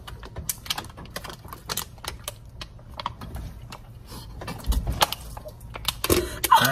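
Thin plastic water bottle crinkling and crackling in irregular clicks as it is gripped and squeezed while someone drinks from it quickly.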